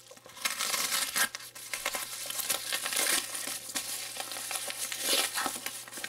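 Paper bubble mailer being slit open with a folding knife and crinkling and rustling as a small cardboard box is pulled out of it.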